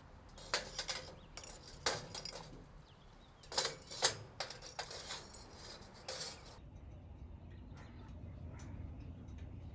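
Metal tongs turning pieces of Kishu binchotan charcoal inside a steel chimney starter: a series of sharp, irregular clinks and knocks of the hard charcoal and tongs against the chimney. About two-thirds of the way in they give way to a faint low hum with a few light ticks.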